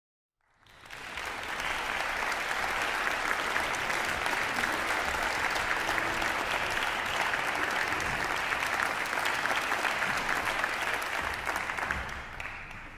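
Concert audience applauding: a dense patter of many hands clapping that swells up out of silence in the first second or so and begins to die down near the end.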